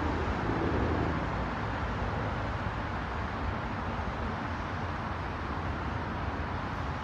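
Steady road traffic noise: a continuous wash of sound with a low hum underneath.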